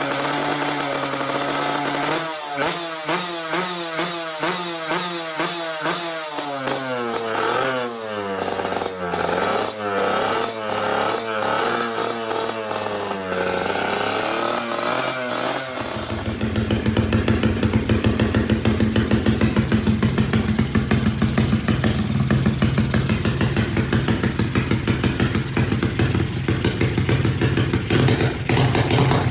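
Drag-racing motorcycle engine idling, then revved again and again in quick blips that rise and fall in pitch. About halfway through it cuts abruptly to a louder engine sound that is held steady.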